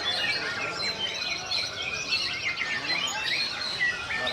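Many caged songbirds singing at once, mostly white-rumped shamas (murai batu), in a dense unbroken mix of overlapping whistles, trills and chirps from rival birds at a song contest.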